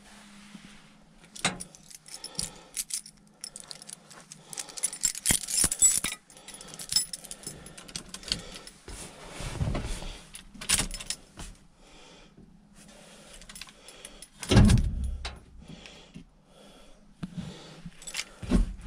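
Keys jangling and clicking, with rustling and scattered knocks from handling in an old pickup's cab, and one heavy thump about three quarters of the way through.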